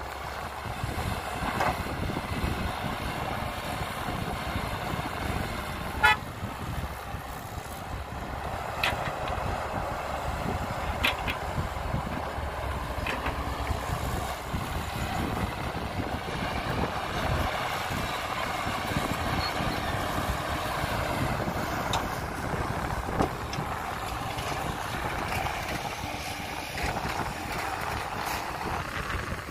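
Heavy diesel earthmoving machinery running steadily, with a sharp clank about six seconds in and a few lighter clanks later.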